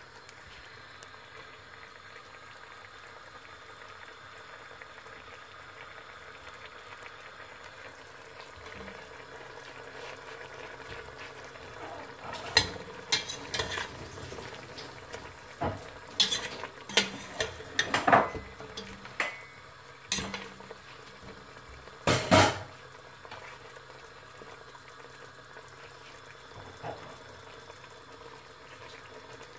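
Chicken simmering in yogurt sauce in a stainless steel pot, a steady low bubbling. About halfway through, for roughly ten seconds, a metal spatula scrapes and knocks against the pot as the pieces are stirred.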